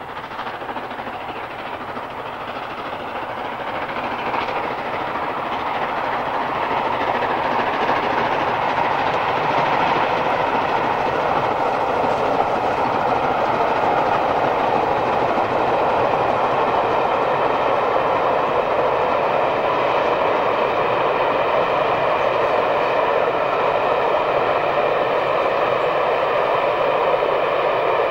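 Steam locomotive hauling a passenger train. The exhaust and the running of the train grow louder over the first eight seconds or so, then hold steady.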